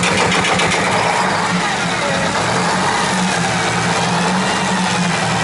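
Eight-cylinder Detroit Diesel marine engine running steadily, heard close up from the open engine bay. It has exhaust leaks on one side, which the owners link to its not reaching full revs.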